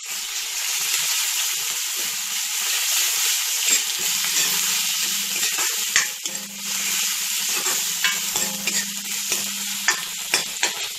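Onions, bay leaves and ginger-garlic paste sizzling in hot oil in a wok while a steel ladle stirs them, scraping and clicking against the pan a few times.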